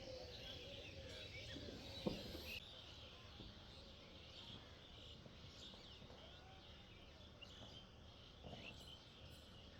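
Faint outdoor ambience with scattered bird chirps, and a single sharp click about two seconds in.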